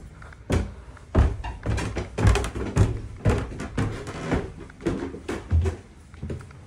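Footsteps climbing a flight of wooden stairs, thudding about twice a second, then stepping onto a wood floor near the end.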